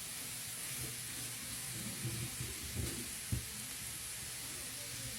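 Chopped sweet potato, carrot and jicama sizzling in a frying pan as they are stirred, with a few soft knocks against the pan, the clearest a little past three seconds in.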